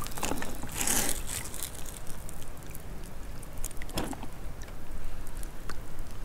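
Shallow seawater stirred by a hand reaching in: a brief splash and slosh about a second in, then small drips and ticks, with a sharper tap about four seconds in.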